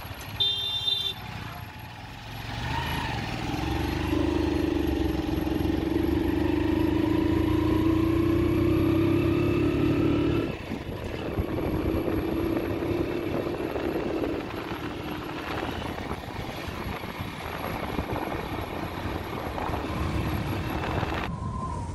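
Vehicle engine running on the move: it climbs in pitch and loudness as it gathers speed, drops off suddenly about ten seconds in, and carries on more quietly. A short high tone sounds about half a second in.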